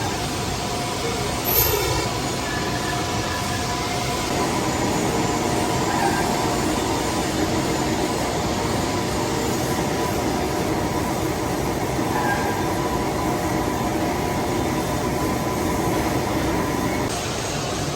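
Metal lathe running steadily during the turning of a bronze bush: a continuous mechanical noise with faint steady tones, and one short sharp click about a second and a half in.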